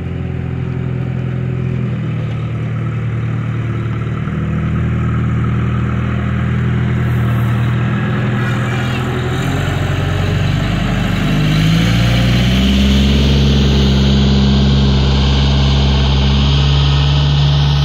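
Diesel engine of an LRT-110 rough-terrain crane, a Cummins 4BT, running steadily as the crane drives along a gravel driveway. A little past halfway the engine note rises and stays higher and slightly louder.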